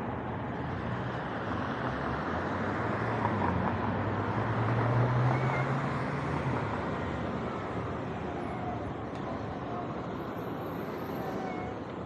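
City street traffic passing an intersection: a steady wash of cars driving by, with a city bus's low engine hum swelling to its loudest about five seconds in and then fading.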